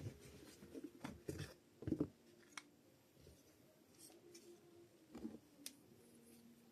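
Power-tool battery pack being handled for repair: scattered light clicks and knocks of plastic, a cluster in the first two seconds with the loudest knock about two seconds in, then a few sparse ticks, all quiet over a faint steady hum.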